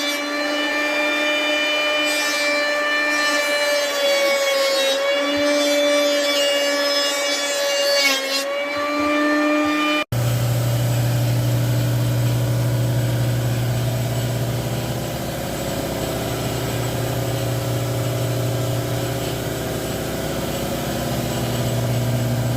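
Electric woodworking power tools running. First comes a steady high whine that dips slightly in pitch a few times, as under load. After a sudden cut about ten seconds in, it changes to a lower, steady motor hum.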